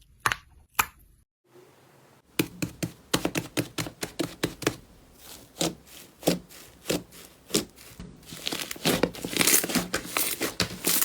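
Slime being squeezed and pulled by hands, giving a run of sharp crackling snaps and pops that come faster and denser near the end. A short break about a second in, where one clip gives way to another.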